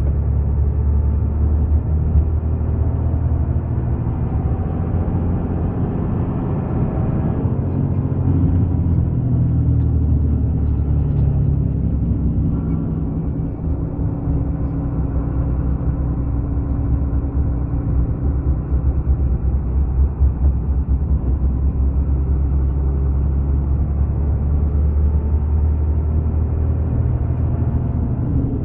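A motor vehicle driving: a steady low engine and road rumble, with the engine note shifting about seven seconds in and again a few seconds later.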